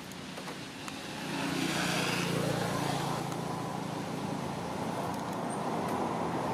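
Engine of a motor vehicle running nearby: a steady low hum that grows louder about a second in and then holds.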